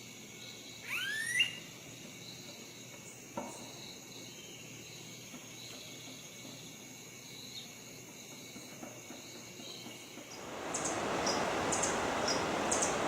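Insects trilling steadily with soft pulses about twice a second, and a loud rising whistled call about a second in. Near the end a louder rustling noise comes in, with short high chirps repeating about every half second.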